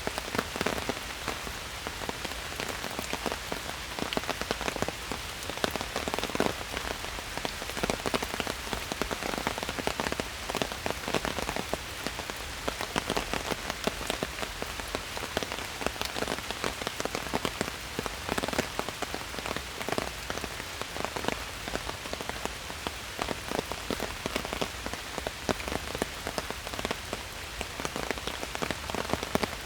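Steady rain falling in a forest, a continuous hiss dense with many small drops striking.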